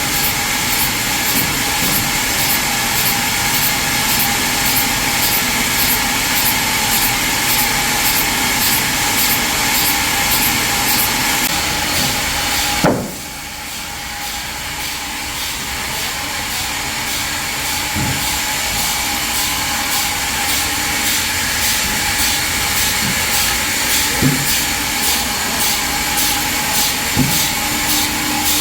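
Sawmill machinery running steadily with a fast, even high ticking. About halfway through there is a sharp knock, the sound drops suddenly, then slowly builds back up.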